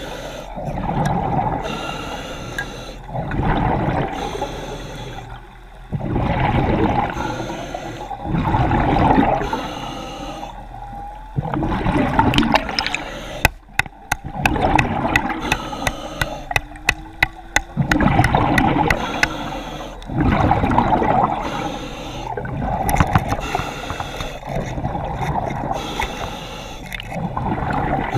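Seawater sloshing and gurgling around a diver's camera, in surges every two to three seconds, with a run of sharp clicks near the middle.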